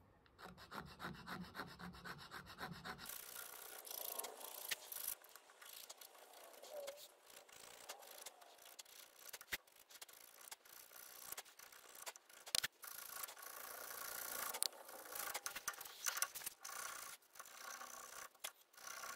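Needle file scraping in short, repeated strokes on the end of a wooden knife-handle block, faintly, with a couple of sharper ticks in the middle. It is cutting a small, steep chamfer around the tang opening so the block will start into the bolster when pressed.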